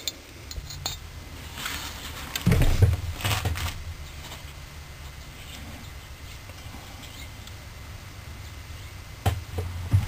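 Small metal clinks and knocks of carburetor parts being handled and set down on a workbench, the loudest cluster a few seconds in and another knock near the end, over a low steady hum.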